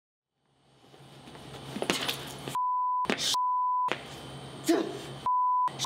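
Censor bleep: a steady 1 kHz beep tone sounds three times, each about half a second long, with the rest of the soundtrack cut out under each beep. The room sound fades in during the first second.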